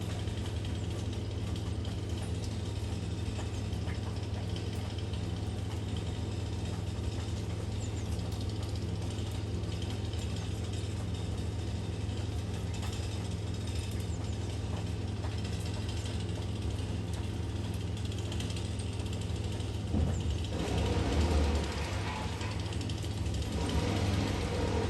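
An engine idling steadily with a fast rattle, the sound of the tree-cutting gear at work. It runs louder and rougher for a second or two about twenty seconds in, and again briefly near the end.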